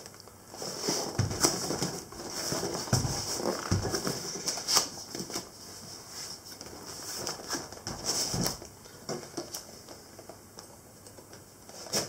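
Cardboard boxes being handled and opened on a wooden table: rustling and scraping cardboard with scattered knocks as the boxes are turned and set down.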